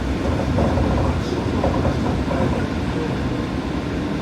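Train running, a steady low rumble and rolling noise, with faint voices in the background.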